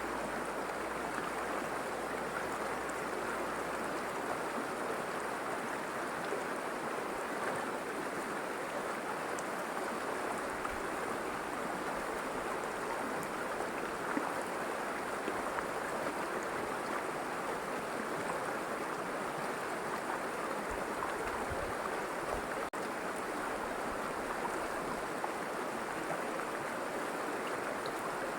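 River water flowing steadily, with a split-second dropout about three-quarters of the way through.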